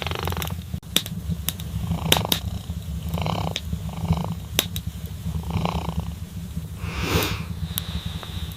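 Kitten purring steadily in a low rumble, with scattered sharp clicks and a few short soft sounds over it.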